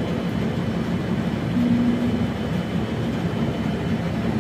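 Steady low rumble of background noise, with a brief low hum about a second and a half in.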